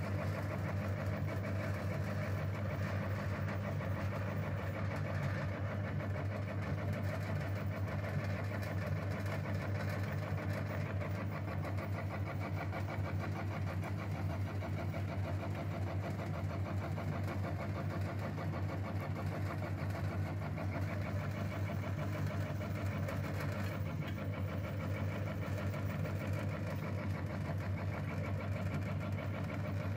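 Electric meat grinder running steadily, its motor giving an even low hum.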